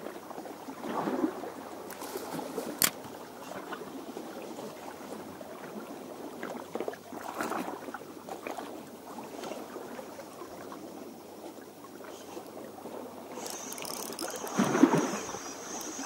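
Sea water lapping and sloshing against shoreline rocks in uneven swells, the largest near the end, with one sharp click about three seconds in.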